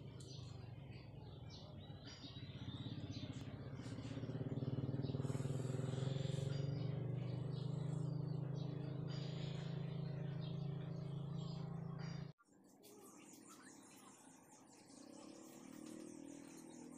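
A motor vehicle engine running steadily, swelling a few seconds in, then cutting off abruptly about twelve seconds in, with birds chirping throughout.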